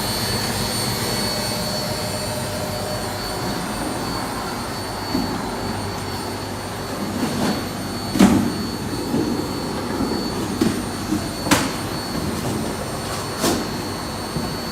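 Beko D5 7101 washing machine spinning at 1000 rpm on freshly replaced drum bearings and seal: a steady whir with a thin high whine. A few sharp clicks come in the second half.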